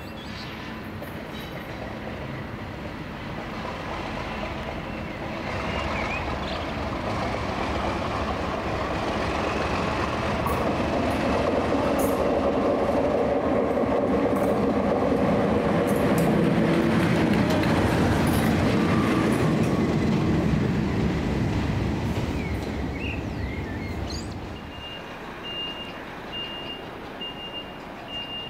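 A train passing through the station: a rumble that swells over several seconds, holds loud for a while, then fades. Near the end a steady, regularly repeating electronic beep starts up.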